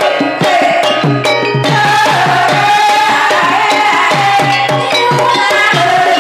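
Javanese gamelan music for a kuda kepang (jaranan) dance: kendang hand drums keep a quick, steady beat under a sustained melody. Sharp clicking strokes sound over it for about the first second and a half.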